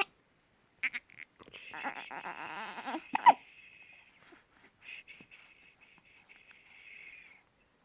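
Dog hiccuping: a sharp hic about a second in, a short whine that ends in a loud hic a little past three seconds, then soft wheezy breathing.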